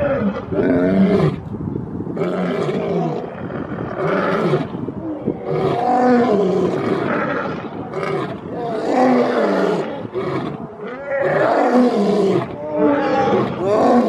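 Lion roaring in a continuous run of short, loud calls, about one a second, each bending up and down in pitch.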